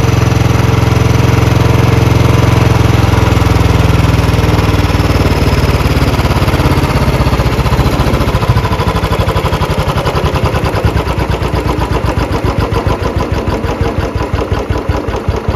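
Royal Enfield Bullet 350 UCE single-cylinder engine idling while its idle speed is turned down with a screwdriver at the carburettor: the firing slows steadily, and from about halfway through each power stroke is heard as a separate beat. The engine is settling toward a low, stable idle as the carburettor is tuned.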